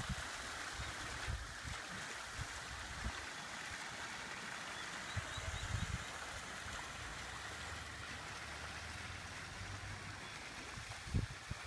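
Water running steadily, a constant wash of splashing, with a few low bumps on the microphone near the end.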